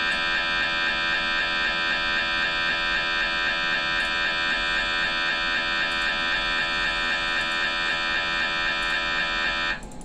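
MRI scanner's gradient coils buzzing loudly during an axial T1 FLAIR brain sequence: one steady, high-pitched tone in a fast, even pulsing rhythm. It cuts off suddenly near the end as the sequence finishes.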